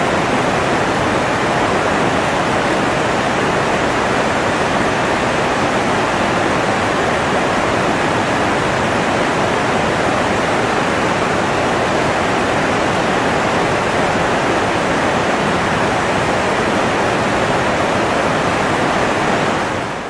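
Steady rush of flowing river water, an even hiss with no breaks, fading out at the very end.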